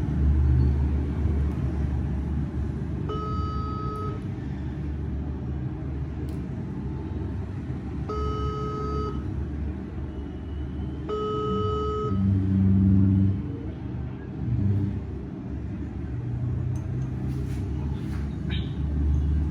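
Phone ringing out on an outgoing video call: three ringback beeps, each about a second long, a few seconds apart, over a steady low rumble.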